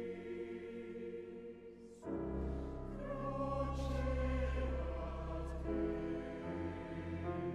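Mixed choir singing sustained chords with piano accompaniment. About two seconds in, the music swells louder as a deep, held bass note comes in beneath the voices.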